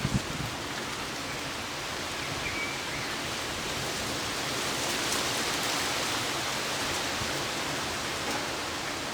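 Heavy rain pouring down steadily in a thunderstorm, a dense even hiss that swells slightly in the middle.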